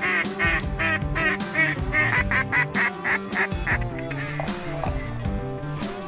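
A duck call blown in a quick run of short quacks, over steady background music. The calling stops a little past halfway and the music carries on.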